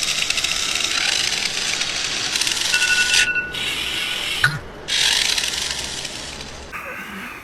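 Alarm clock ringing in rapid rattling bursts: a long ring of about three seconds, a short burst, then nearly two seconds more, with a single thump in one of the gaps.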